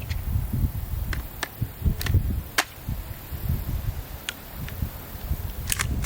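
Gunshots at a shooting range: about eight sharp reports at irregular intervals, the loudest about two and a half seconds in, over a low rumbling noise.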